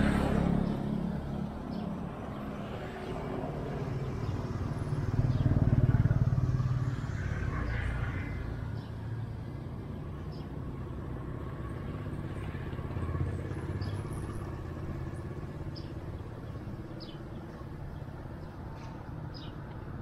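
A motor vehicle's engine rumbling past, swelling to its loudest about six seconds in and then settling into a steady low hum, with a few faint bird chirps.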